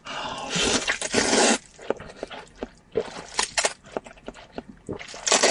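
Loud wet slurping of hot and sour glass noodles (suanlafen) drawn up from a bowl of broth: one long slurp lasting about a second and a half, then wet chewing with short slurps, and another loud slurp near the end.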